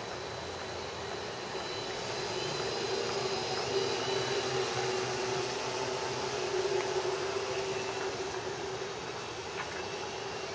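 Hexacopter's six 2836 750kv brushless motors spinning 12x4.5 propellers in flight: a steady buzzing hum over a hiss, growing a little louder in the middle and easing off near the end.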